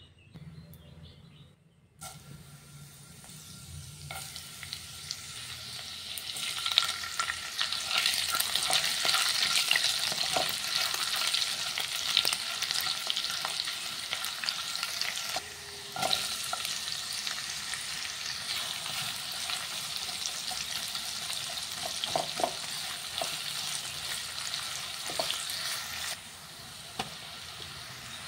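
Cumin seeds and chopped garlic sizzling in hot oil in a nonstick pot, stirred with a spatula that clicks and scrapes against the pan. The sizzle starts about two seconds in, builds, and eases off in steps later on, with onions and tomatoes in the pot near the end.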